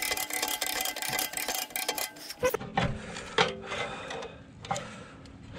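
Davit winch mechanism working under load: rapid clicking and rattling for about two and a half seconds, then scattered clicks and knocks.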